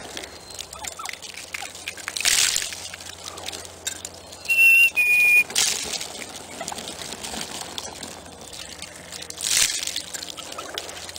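A flock of wild turkeys feeding on scattered seed on snowy ground, with a busy, scratchy, crunching background. Two short hissing bursts come several seconds apart. The loudest sound is a pair of short, high, steady notes a little before the middle, the second slightly lower than the first.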